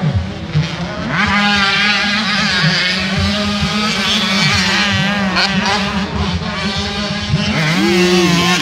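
Several motocross bikes racing on a dirt track, their engines revving up and down repeatedly as they take the jumps, over a steady low drone.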